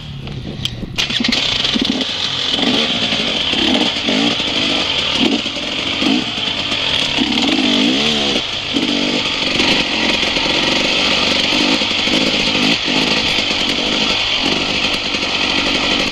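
Enduro dirt bike engine revving up and down as it is ridden on a rough trail, getting louder about a second in. A steady hiss runs over it.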